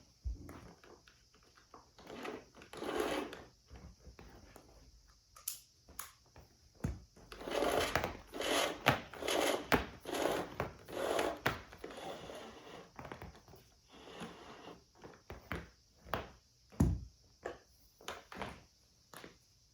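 Irregular knocks, clicks and rustling of things being handled, busiest from about seven to twelve seconds in, with a single heavier knock near the end.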